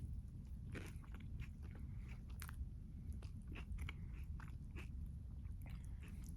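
A person chewing and biting food close to the microphone, with irregular crunches and many short mouth clicks over a low steady hum.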